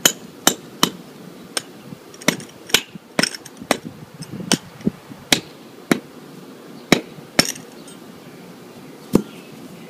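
Masonry chisel struck repeatedly with a mallet, scoring a line across a stone edging block so it can be cut: about fifteen sharp knocks, irregularly spaced about half a second apart, with a longer pause before a last knock near the end.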